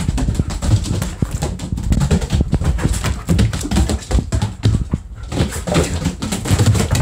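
A German shepherd romping with a kitten on a wooden floor: a busy, irregular run of paw thuds, knocks and scrabbles.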